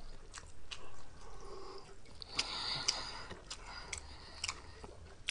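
A man's faint breaths out through pursed lips, twice, with scattered mouth and lip clicks, after very spicy noodles that leave his mouth hot.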